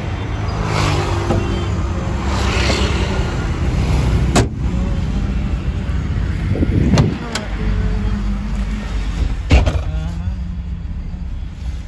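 Skoda Rapid with a steady low engine hum, over which come a few sharp knocks: the bonnet being shut about four seconds in, then the car door opening and slamming shut near nine and a half seconds.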